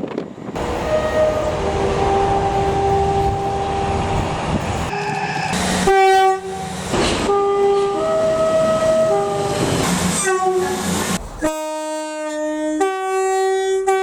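Class 150 diesel multiple unit's horn played as a tune: a run of short and long notes at changing pitches over the rumble of the train. About three-quarters of the way through the rumble drops away and the horn notes carry on alone.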